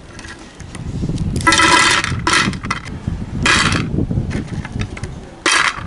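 Street traffic with a few short vehicle-horn honks, the longest about a second and a half in, over a steady low rumble.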